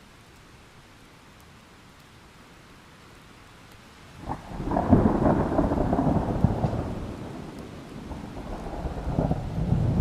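Thunder over steady rain: a few seconds of rain hiss, then a sudden crack about four seconds in that breaks into a loud rolling rumble, easing off and then swelling again near the end.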